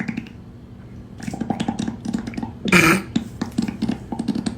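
A person's loud, sputtering flatulence: a run of short wet pops with one loud burst a little under three seconds in.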